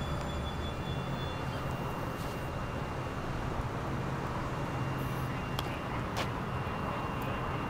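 Phoenix Metro light rail car giving a steady low hum with a faint high whine. Two sharp clicks come a little past halfway.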